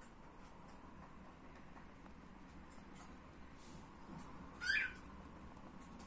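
Faint brush strokes on canvas scratching softly, with one short high squeak just under five seconds in.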